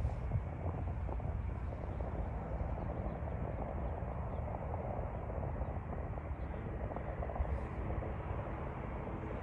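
Qantas Boeing 787-9's Rolls-Royce Trent 1000 engines heard from the ground as the airliner flies low on final approach: a steady, distant jet rumble.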